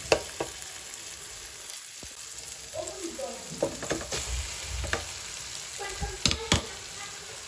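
Carrots, onions, tomato and egg sizzling in a non-stick frying pan while a plastic spatula stirs them, scraping and tapping the pan. Drained instant noodles are tipped in from a sieve partway through, with a few sharp knocks against the pan near the end.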